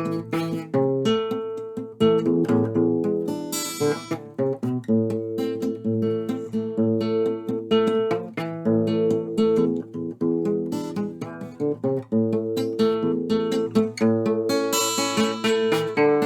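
Acoustic guitar playing alone, an instrumental passage of plucked and strummed notes in a steady flow, with no singing.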